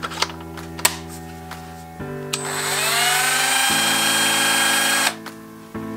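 Cordless Dremel rotary tool with a buffing bit, switched on and running free: a whine that rises in pitch over about half a second, holds steady for about three seconds, then cuts off. A few clicks of the tool being handled come before it.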